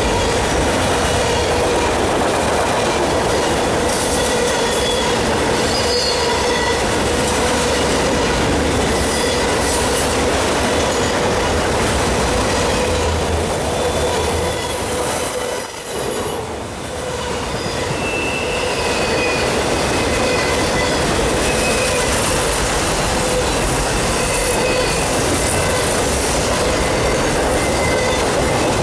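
Autorack freight cars rolling past at close range: a steady loud rumble and rattle of wheels on the rails, with short high-pitched wheel squeals coming and going. The noise dips briefly about halfway through.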